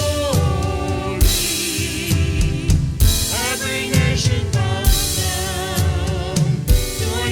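Worship band playing with a full drum kit, cymbals crashing about a second and three seconds in, and voices singing a held melody.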